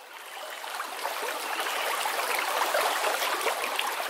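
A stream running with a steady rush and small gurgles, swelling gradually over the first couple of seconds.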